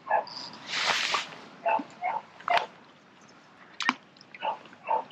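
Short animal calls, repeated about six times at uneven intervals, with two louder hissing rushes and a couple of sharp clicks.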